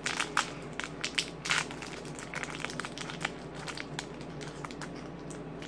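Small plastic toy wrapper crinkling and crackling as it is handled and pulled open by hand. The crackles come thick in the first couple of seconds, then thin out to scattered light ticks.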